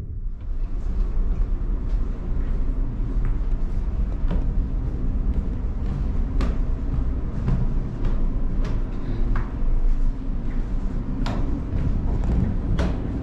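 Steady low rumble of the ferry's engines heard inside the ship. Scattered sharp taps of footsteps on metal-edged stair treads come in about once a second as someone climbs the stairs.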